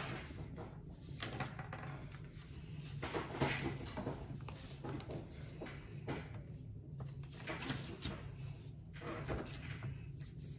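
Quiet handling sounds at a table: a pen writing on paper and a few light knocks, over a low steady hum.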